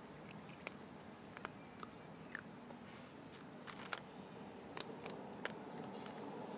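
Cat eating from a bowl, its chewing heard as faint, irregular little clicks and crunches.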